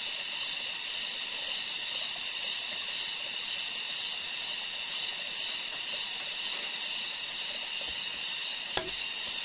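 Steady high-pitched hiss of an insect chorus, pulsing gently, with a single sharp knock near the end.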